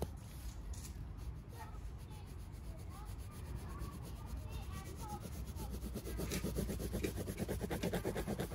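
Graphite lead-holder pencil scratching across paper on a clipboard. About six seconds in it turns to quick back-and-forth hatching strokes, louder and rhythmic.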